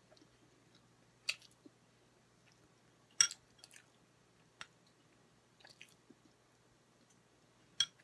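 Close-up chewing of chicken with the mouth closed: a few scattered wet mouth clicks and smacks, the loudest about three seconds in, over a faint steady low hum.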